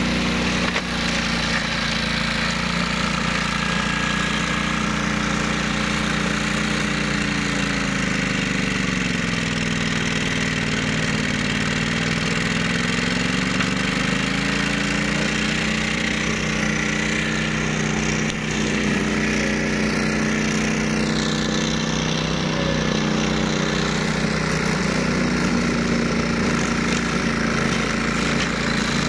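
Ride-on flail mower's engine running steadily. Its pitch dips for a few seconds in the middle as it slows, then recovers.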